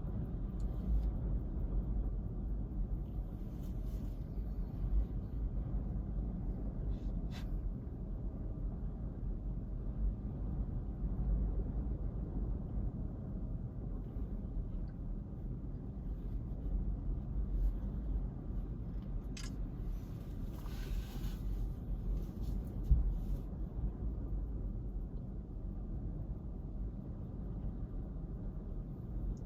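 Steady low rumble of typhoon-swell surf with wind buffeting the microphone, with a brief hiss about two-thirds of the way through and a couple of faint clicks.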